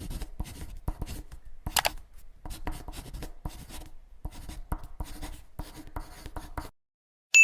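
Quick, irregular scratching and tapping strokes, a few per second, that stop about 6.7 s in. After a short silence a bright, ringing ding starts right at the end and is the loudest sound.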